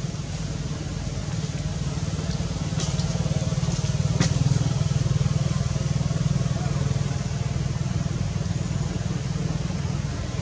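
An engine running steadily, growing louder around the middle and easing off again, with a couple of sharp clicks a few seconds in.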